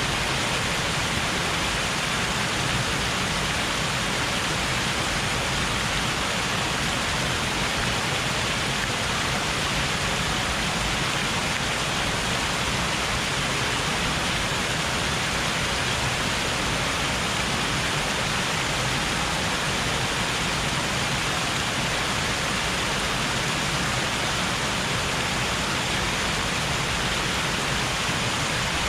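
Steady rushing of flood water pouring over a small dam as a waterfall, swollen by heavy overnight rain.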